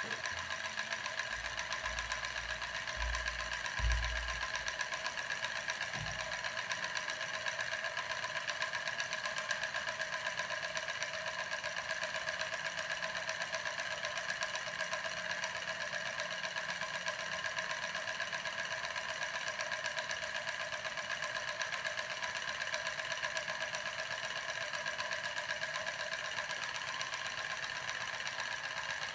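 Homemade can-boiler steam engine running, its syringe piston driving a spinning CD flywheel, with a steady, rapid rhythmic clatter and a constant whine. A few low thumps in the first few seconds.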